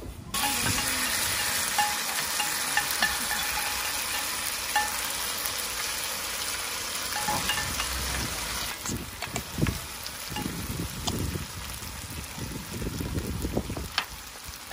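Food sizzling and crackling in a hot oiled pan, starting suddenly just after the beginning. From about halfway through, a utensil stirs and scrapes the food around the pan, with a sharp click near the end.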